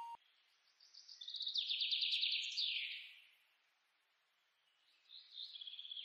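Quiet forest ambience: high, rapid chirping trills of wildlife. One run starts about a second in and slides down in pitch as it ends about two seconds later, and another begins near the end.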